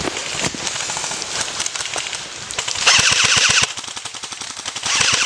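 Airsoft guns firing on full-auto: rapid strings of sharp snapping shots, about fifteen or more a second, with the loudest, closest burst about three seconds in.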